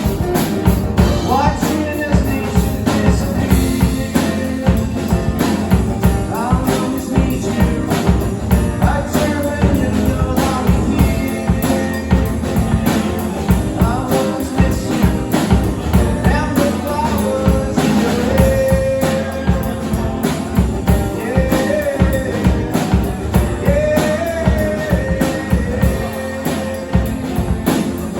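Live rock music from a guitar-and-drums duo: a drum kit keeps a steady, busy beat under a guitar, with melodic lines bending in pitch over the top.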